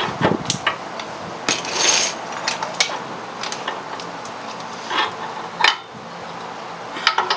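Irregular metal clinks and knocks from steel parts at the front hub and axle end being handled by hand, with a brief scrape about two seconds in and a sharper knock near the end.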